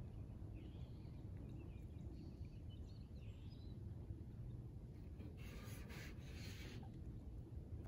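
Faint outdoor ambience at a lake: a steady low rumble with a few faint high bird chirps in the first few seconds, and a brief hissing rustle about five and a half seconds in.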